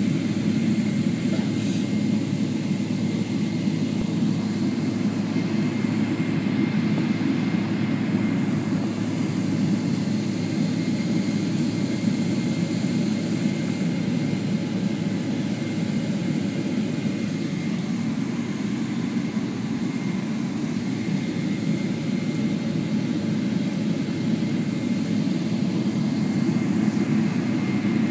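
Cabin noise inside a Boeing 777 with its jet engines running: a steady low rumble with a faint high whine, holding level throughout.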